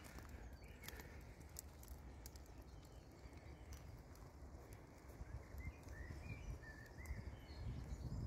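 Footsteps and twig crackles on the woodland floor over a low rumble, with a few short bird chirps about six seconds in.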